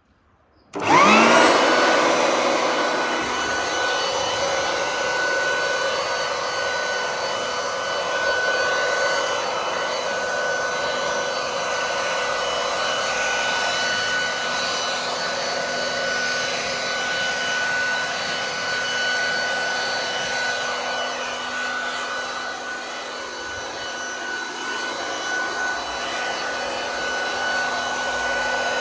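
Ryobi RBV3000CSV 3000 W electric leaf vacuum/blower switched on about a second in. Its motor and fan spin up with a quick rising whine, then run steadily at full speed: a rush of air under a steady high whine.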